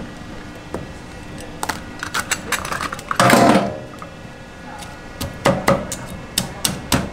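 A cleaver working on a whole crab over a wooden chopping block: scattered scraping clicks, a louder crunch of shell about three seconds in, then a quick run of sharp knocks as the blade strikes the shell and board.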